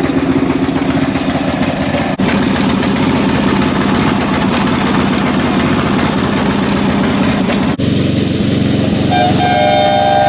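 Riding lawn mower's small engine running steadily as it is driven, with two brief dropouts. About nine seconds in, its three electric air horns start sounding together, a steady chord of several tones over the engine.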